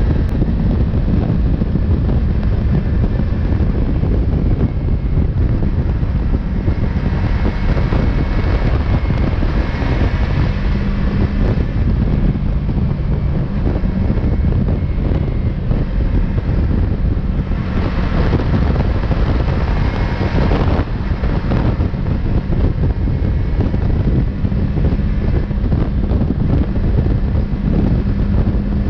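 Heavy wind noise buffeting the camera microphone on a Yamaha MT-03 motorcycle riding at highway speed, with the engine running steadily underneath. The hiss swells twice, about a third of the way in and again past the middle.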